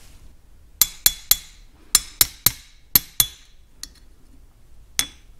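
Ball-peen hammer lightly tapping a punch to seat a Welch plug in the throttle body of a Farmall M carburetor. There are quick runs of two or three sharp, ringing metallic taps about a quarter second apart, then a faint tap and a single tap near the end.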